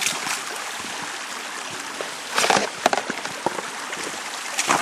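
Shallow creek water running over rocks, with splashing footsteps of rubber boots wading through it. The loudest splashes come a little past two seconds in and again near the end.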